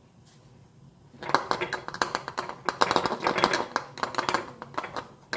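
Thyme sprigs rustling and crackling as they are handled and pushed into a bottle, starting about a second in as a dense run of quick crackles.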